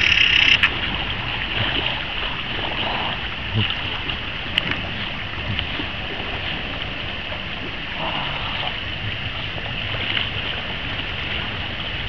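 Steady wash of shallow sea water around swimmers, with a short louder splash at the very start.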